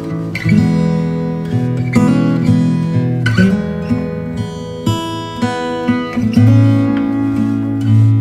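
Background instrumental music: a plucked-string tune with notes struck every fraction of a second over held bass notes.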